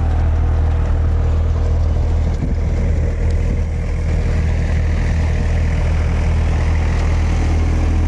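Tractor-driven Malwa multicrop thresher running steadily: a constant low engine drone with the threshing drum and fan turning, as the machine threshes damp urad plants.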